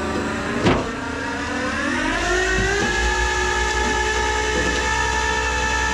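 Tow truck's engine speeding up over about two seconds, then holding a steady drone, after a single knock near the start.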